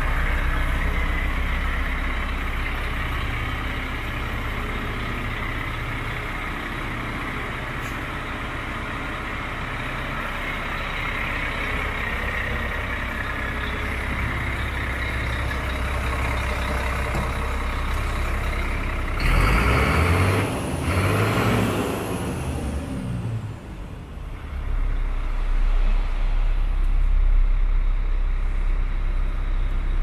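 DAF CF75.310's 310 bhp turbo diesel engine idling with a steady low hum. About two-thirds of the way through, a loud rushing noise lasts for a few seconds.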